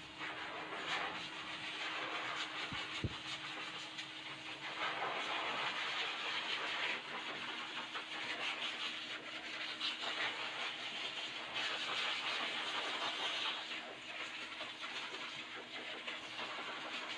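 Pet blow dryer running with a steady rush of air over a low motor hum, swelling and dipping in loudness as the airflow moves over the dog's coat.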